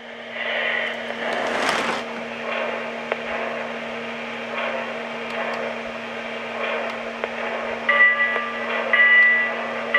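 Lionel O-gauge steam locomotive running on the track, its electronic sound system backed by a freshly fitted 9-volt battery, over a steady low hum. Near the end the locomotive's whistle sounds two short blasts.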